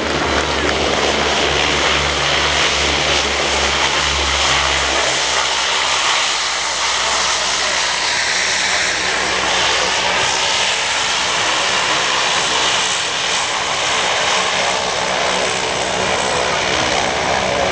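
Lockheed C-130 Hercules' four turboprop engines and propellers running loud and steady as the aircraft rolls along the runway after landing. A low droning hum is strong for about the first five seconds, then fades, leaving an even rushing engine noise.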